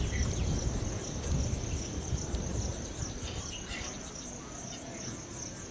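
Insects chirping, a continuous high-pitched trill that pulses steadily, over a low rumble.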